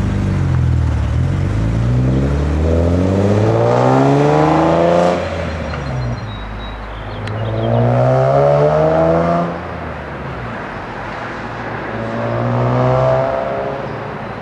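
BMW E46 M3's 3.2-litre inline-six through a Supersprint race exhaust, revved three times. The first is a long climb over about four seconds, and the other two are shorter. Each rev falls quickly back to idle.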